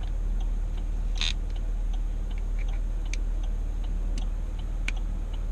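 Scattered light clicks and ticks of night-vision gear on a rifle being handled as its cables are plugged back in, with a louder brief rustling click about a second in and a sharp click near the end, over a steady low hum.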